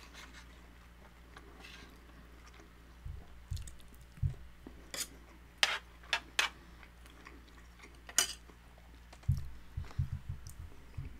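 Close-miked eating sounds: scattered sharp clicks and taps of a spoon and fingers on a metal sheet tray as a crunchy fried birria taco is handled, with dull thuds of chewing.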